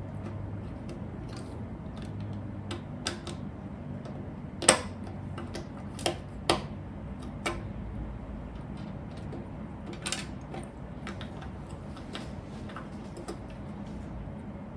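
Lego pieces being handled and pressed together: scattered sharp clicks and taps at irregular intervals, the loudest about five seconds in, over a low steady hum.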